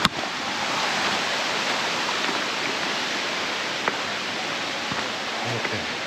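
Stream water rushing steadily at a rope-tied trail crossing, a constant even rush, with a brief sharp knock right at the start.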